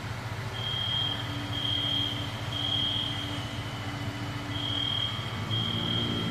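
Apartment smoke alarms beeping: high, even beeps in groups of three with a pause between groups, the temporal-three pattern of a fire evacuation signal. Under them runs the steady low rumble of idling vehicle engines.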